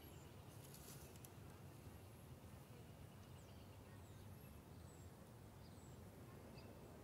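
Near silence: faint outdoor background hum with a few brief, faint high bird chirps.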